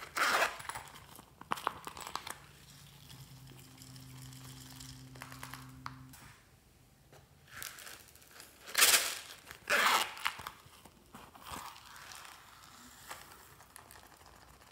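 A small zippered coin purse is pulled open in short zipping pulls, with rustling and crinkling as the purses are handled. The loudest pulls come about nine and ten seconds in. A faint low hum runs for a few seconds in the middle.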